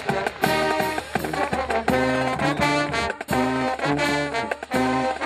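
Brass band of trombones, trumpets and sousaphone playing an up-tempo tune in loud, rhythmic chords, with short breaks between phrases.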